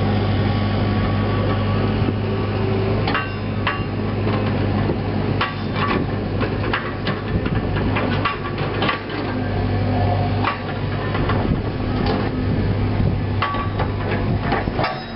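Cat 307C mini excavator's diesel engine running steadily, with irregular sharp clanks and knocks from the machine starting about three seconds in as it tracks and works on top of a dirt pile.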